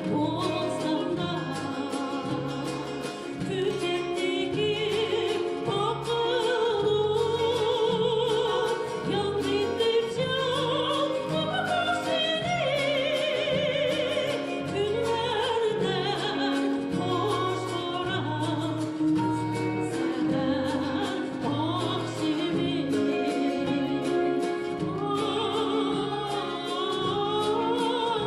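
Uyghur folk song: a solo voice singing a melody with strong vibrato over instrumental accompaniment with a steady, regular bass beat.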